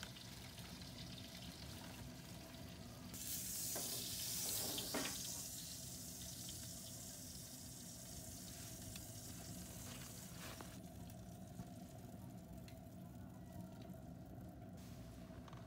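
Grilled pork slices sizzling as they come out of the hot rocket-stove oven onto a steel tray, with a louder stretch of hissing about three seconds in that fades over a couple of seconds. A few light clicks and a faint steady hum sit underneath.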